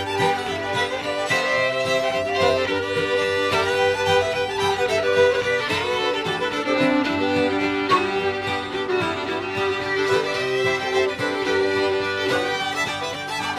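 Fiddles playing a lively traditional fiddle tune together in an acoustic jam, with quick runs of notes.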